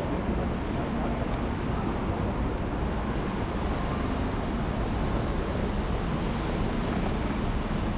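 Steady city traffic hum from buses and cars on the road below, with a constant rushing of wind.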